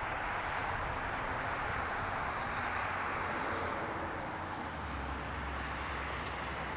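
Steady wash of road traffic noise, with a low engine hum joining about five seconds in.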